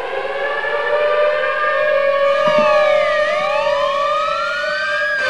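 A civil defence siren wound up to a steady howl. About two seconds in, a wailing emergency-vehicle siren joins, its pitch sweeping down and then up.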